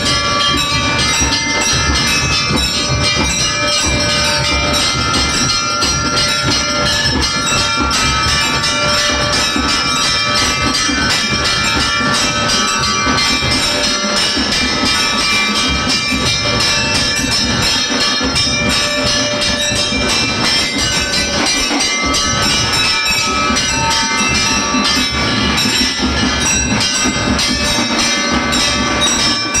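Temple bells clanging continuously during the aarti, with fast, steady drumming underneath.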